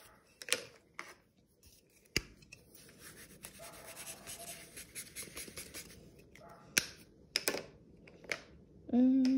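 Felt-tip marker scratching across paper in short strokes, with a few sharp clicks. Near the end, a short hummed note.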